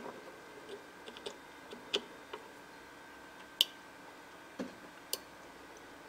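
Scattered small clicks and light taps from a barrel power plug being pushed into the jack of a DIY LC meter kit and the board being handled as it powers up and calibrates. The loudest is a single sharp click about three and a half seconds in, with two more a second or so later.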